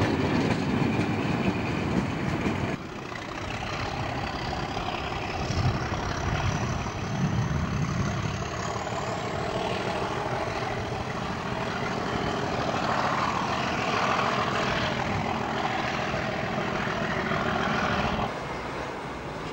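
English Electric Class 37 diesel locomotive pulling a rake of coaches away under power. Its V12 engine works hard, with a high whistle that climbs slowly in pitch as it gets going.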